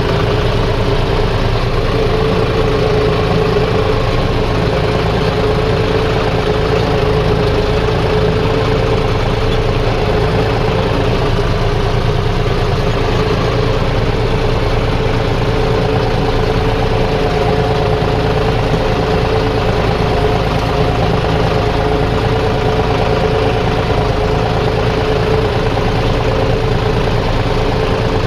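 An engine running steadily at a constant speed, with a low rumble and a steady whine over it; a second, higher whine joins a little past halfway.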